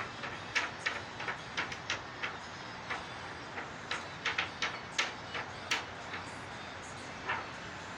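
Short, sharp clicks at an irregular pace of two or three a second, over a steady background hum; no siren is sounding yet.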